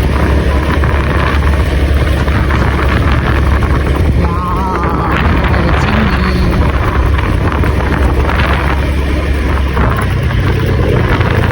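A vehicle engine running steadily while on the move, with wind buffeting the microphone.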